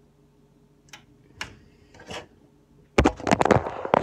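A few light clicks, then about three seconds in a loud burst of close clattering and rubbing from the recording phone being picked up and moved by hand.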